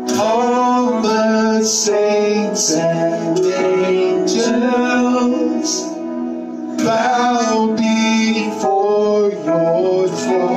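Live worship band music: a singer, mainly a woman's voice, singing phrases over guitar accompaniment.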